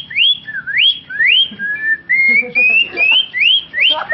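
A child whistling an imitation of a cucak ijo (greater green leafbird) song: a rapid string of clear, upward-sweeping whistled notes, about two to three a second, with a run of longer, flatter rising notes in the middle.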